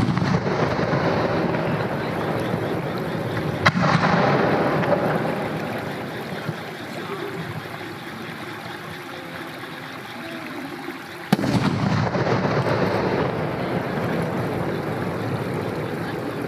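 Aerial firework shells bursting high overhead, with sharp single bangs about four seconds in and again near eleven seconds in. Each bang is followed by several seconds of rolling echo that slowly dies away.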